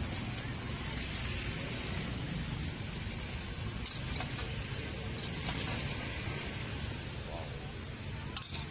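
Stir-fry in a steel wok: a steady sizzling hiss over a low rumble, with a few light clicks and scrapes of the metal spatula against the wok, around four and five and a half seconds in and again near the end.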